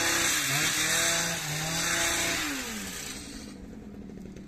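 Handheld garden power tool running at full speed. Its pitch dips briefly twice, then winds down as the throttle is let off about two and a half seconds in, leaving a much quieter hum.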